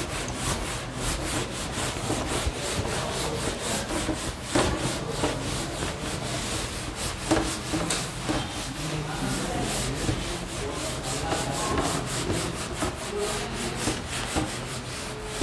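Whiteboard duster rubbing across a whiteboard in rapid back-and-forth strokes, wiping off marker writing.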